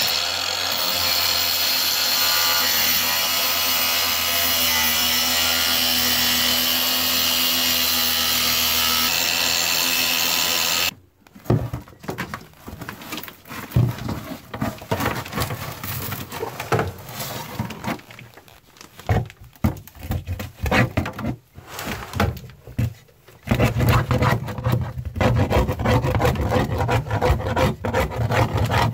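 Cordless Ryobi power cutter running steadily under load as it cuts through the fiberglass deck ceiling, stopping suddenly about eleven seconds in. Irregular scraping and rubbing follow, heavier and more continuous near the end.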